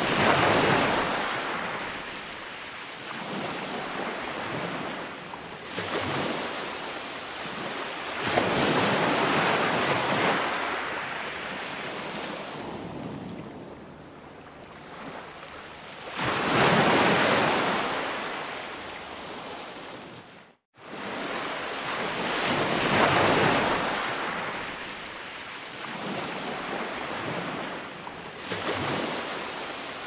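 Small sea waves breaking and washing up a sandy beach, the surf swelling and fading every several seconds. The sound cuts out for a moment about two-thirds of the way through.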